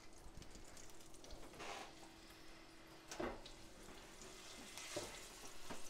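Pancetta and vegetables sizzling faintly in a hot stainless steel sauté pan while a spatula stirs and scrapes them, with a few sharper scrapes against the pan.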